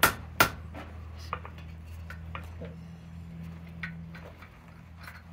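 Hand hammer striking hot steel on an anvil: two sharp, ringing blows right at the start. These are followed by a few lighter metallic clinks of tongs and the workpiece against the anvil, over a steady low hum.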